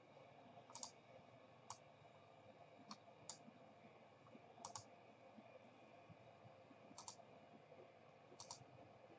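Faint computer mouse clicks scattered over near silence, several of them quick double-clicks, about one every second or two.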